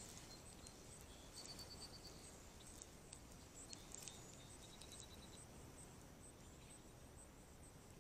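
Near silence: faint outdoor ambience with a steady high insect drone and a couple of short, fast chirping trills.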